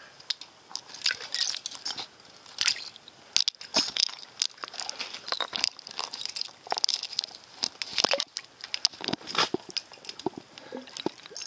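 Irregular crackling clicks and crunches from churning water and ice in an ice-fishing hole as a hooked lake trout thrashes in it, a dense scatter of sharp ticks with no steady tone.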